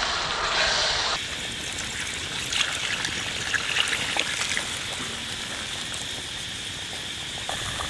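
A stream of milky liquid pouring into a pan of simmering meat curry: a steady trickling hiss with scattered small crackles.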